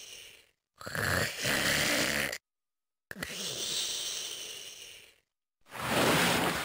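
Voice-acted snoring, Zenitsu Agatsuma's sleeping snore from the DX Nichirinto toy sword's sound set. Four snore breaths of two alternating kinds, each cut off by dead silence.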